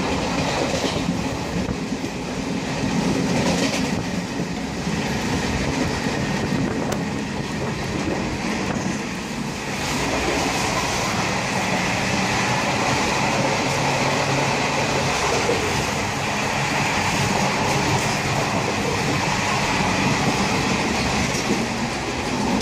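Indian passenger train running, heard from inside the coach: a steady rumble and rattle with occasional clacks of the wheels over rail joints.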